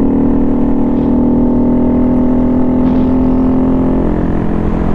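Honda Grom's 125 cc single-cylinder engine running at a steady cruising speed, with wind noise on the helmet microphone; the engine note eases off about four seconds in.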